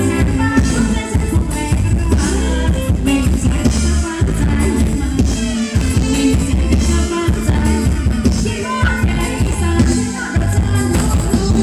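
Live Thai luk thung band music: a singer over drum kit, electric guitar and a heavy, steady bass beat.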